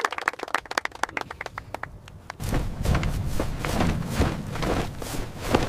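A group of people clapping, quick scattered claps that stop about two and a half seconds in. A low steady rumble with soft thuds about twice a second then takes over.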